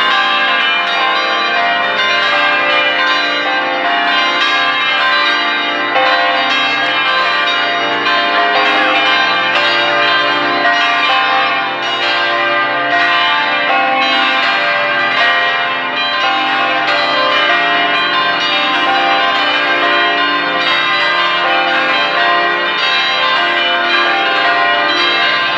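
Church bells ringing together without pause, many bells struck in quick succession with their tones overlapping and ringing on.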